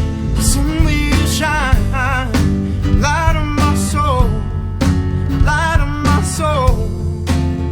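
Drum kit playing along with a rock band recording, with steady snare and cymbal hits over bass and guitar. A lead melody with heavy vibrato comes in about a second and a half in, pauses, and returns near the end.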